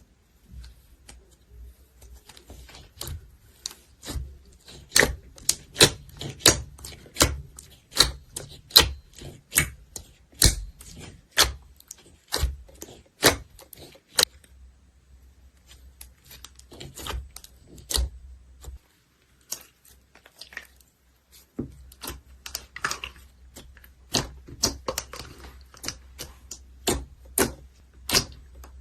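Slime being squeezed and poked, its trapped air popping in runs of sharp, irregular clicks and pops, several a second at times, with brief pauses.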